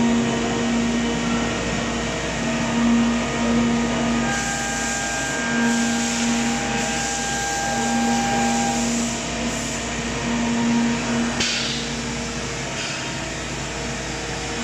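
A Doosan five-axis CNC machining centre side-milling 1.4301 stainless steel with a ZCC-CT 16 mm four-flute end mill at about 3,580 rpm under flood coolant. A steady low cutting tone swells and fades every two to three seconds over the hiss of the coolant spray.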